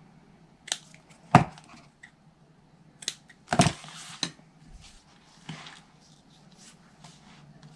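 Scissors and craft pieces handled on a tabletop: a handful of sharp clicks and knocks, the two loudest about one and a half and three and a half seconds in.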